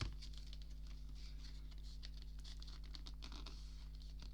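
Hands handling a CD gatefold case: a light knock at the start, then continuous scratchy rustling and sliding of card and plastic.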